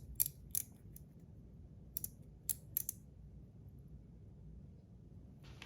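Light, sharp clicks of a small container being handled and worked at by hand while it is being opened. A few come in the first second and a cluster about two to three seconds in, with a short rustle near the end.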